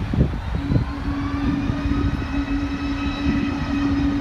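Jet airliner's engines running as it passes: a low rumble with a steady drone and several high whining tones.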